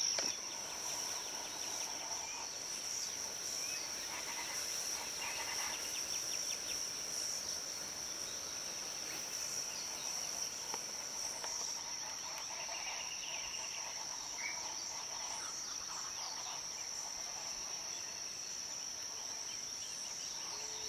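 Steady, high-pitched insect drone that holds unbroken throughout, with faint scattered short chirps beneath it.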